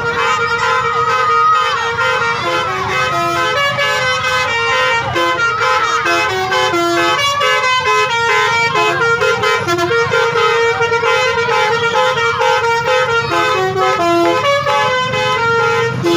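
Bus 'telolet' musical air horns playing quick melodies, the horn notes stepping up and down every fraction of a second, over a low engine rumble.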